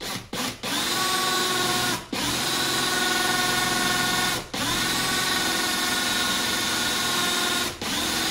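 Cordless drill boring a relief hole into a titanium scooter handlebar tube, pressed down hard. A few short blips of the trigger, then a steady whine that stops briefly three times and spins back up each time.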